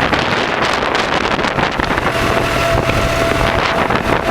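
Tractor engine running steadily under load, with wind buffeting the microphone. A thin steady whine joins in for about a second and a half past the middle.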